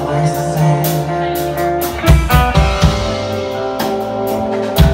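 Live pop-punk band playing an instrumental passage: electric guitars holding chords over a drum kit with repeated cymbal hits, the bass and kick drum coming in heavier about two seconds in.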